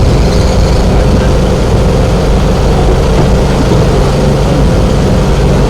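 A large engine running steadily with a low, even drone.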